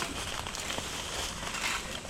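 Steady rustling and crackling, the sound of movement through jungle undergrowth, with a few faint clicks.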